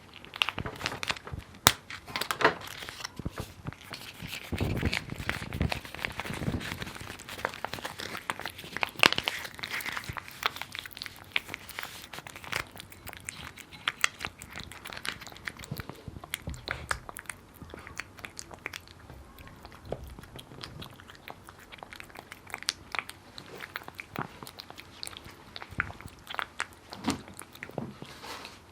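A cat crunching dry kibble: a long run of quick, sharp crunches, louder and denser in the first half.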